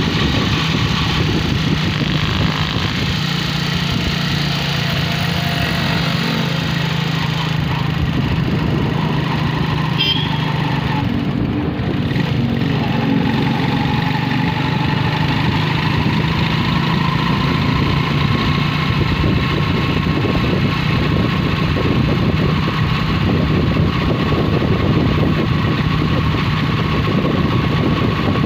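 Engine of a road vehicle running steadily as it drives along, heard from on board with a constant low drone and road noise, and a faint higher whine for much of the ride.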